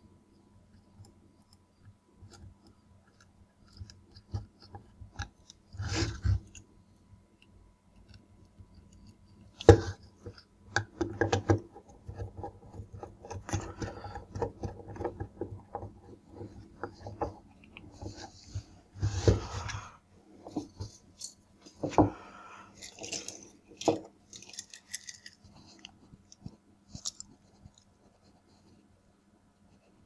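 A screwdriver working the terminal screws of plastic magnetic contactors while insulated wires are bent and pushed into the terminals: irregular clicks, scrapes and rustles.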